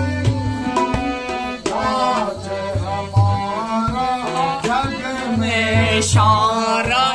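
A man singing a Ramlila verse, accompanied by a harmonium and a tabla, with the tabla's deep bass drum sounding in repeated low strokes under the voice.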